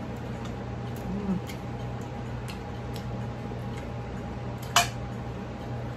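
Eating by hand from a ceramic plate: a few faint ticks and light clicks, then one sharp clink a little under five seconds in, over a steady low hum.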